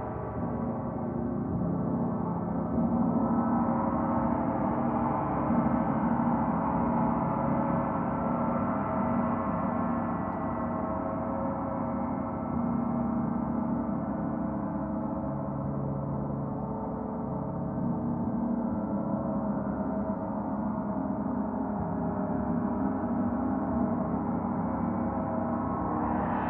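Several gongs sounding together in a continuous wash of overlapping, ringing tones, with no single strike standing out.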